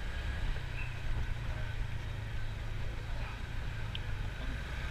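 Honda motorcycle engine running at low speed, a steady low rumble.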